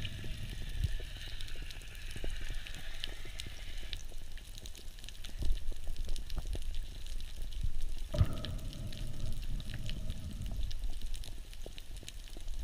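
Underwater ambience: a steady low rumble with many small crackling ticks, as heard by a camera under the sea. About eight seconds in a louder rushing noise sets in and continues.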